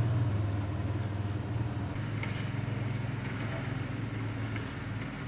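Old fire truck's engine running steadily, heard from inside the cab as an even low pulsing hum.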